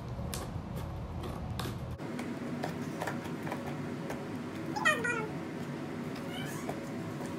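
Scissors snipping through the tape on a cardboard box, a few sharp clicks in the first two seconds. Just before five seconds in, a loud meow that wavers and falls steeply in pitch, with a fainter one a little later.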